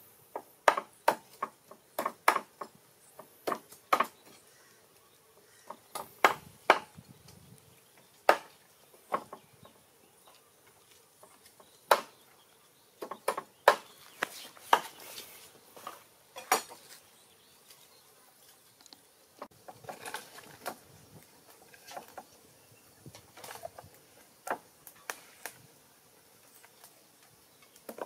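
A knife blade striking wood: sharp, irregular knocks, often in quick pairs, loudest through the first half and fainter and more scattered after about 18 seconds in.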